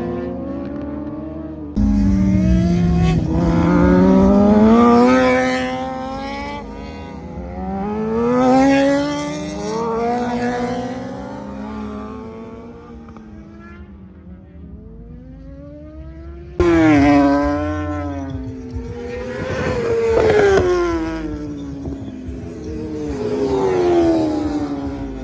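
Racing sport-bike engines at high revs going past one after another, each rising and then falling in pitch as it passes. The sound jumps abruptly louder about two seconds in and again near seventeen seconds.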